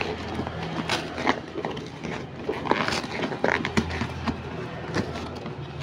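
Cardboard shipping box being handled and its cut flaps pulled open by hand: irregular scraping, rustling and light tapping of cardboard.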